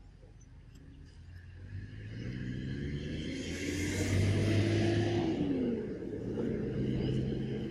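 A motor vehicle's engine passing close by: it builds up over a couple of seconds, is loudest about four to five seconds in, and dips in pitch midway before running on.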